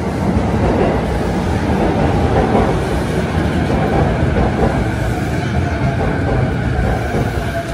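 A JR Saikyo Line electric commuter train (E233 series) pulling into the station platform and running close alongside it, a loud, steady rumble of wheels and motors.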